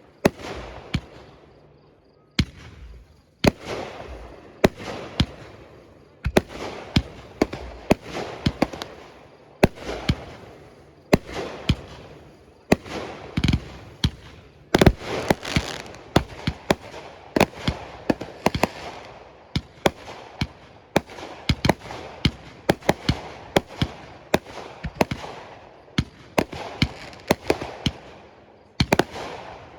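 Fireworks display: aerial shells bursting in a rapid barrage of sharp bangs, several a second at times, with an echoing rumble between them and a short lull near the end.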